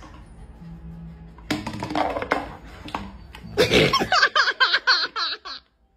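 A person laughing in quick repeated bursts for about two seconds in the second half, cutting off abruptly. Before that there are a few knocks.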